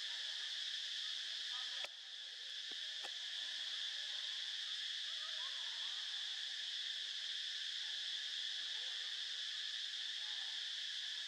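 Steady chorus of insects in the forest, a continuous high buzz. It dips briefly about two seconds in and then returns.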